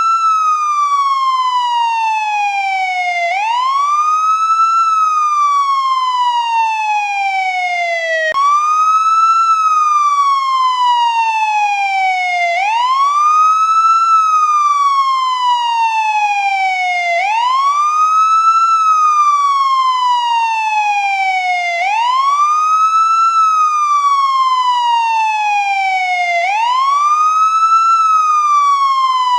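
American police siren on its wail tone: a pitch that climbs quickly and slides slowly back down, repeating about every four and a half seconds. About eight seconds in, the sweep breaks off and restarts suddenly.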